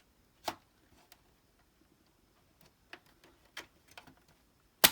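Scattered light plastic clicks and taps from handling the Xbox 360 E console's plastic casing and clips, with one sharp, loud click near the end.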